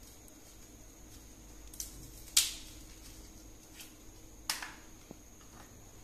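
A few sharp clicks and taps of things being handled, the loudest about two and a half seconds in and another about four and a half seconds in, over a faint steady high-pitched whine.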